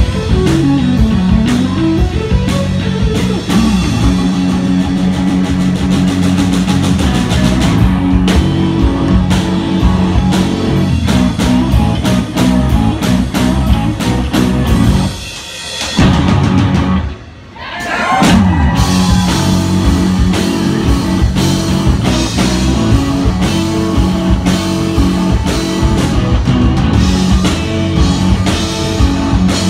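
Live rock band playing: electric guitars over a drum kit. About halfway through, the music drops out briefly twice, then the full band comes back in.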